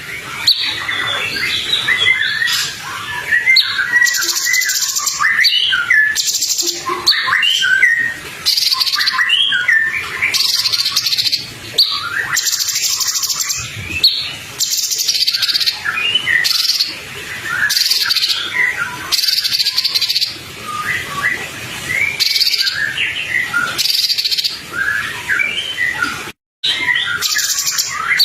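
Songbird song for masteran, the recordings played to teach cage birds their songs: a dense run of quick chirps, twitters and short whistled glides. Harsh hissing notes come in about every second or two. The sound cuts out completely for a moment near the end.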